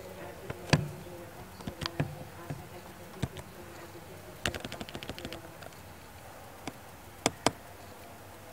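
Computer keyboard keystrokes: scattered single taps, a quick run of about ten taps around the middle, and two taps near the end, over a faint steady hum.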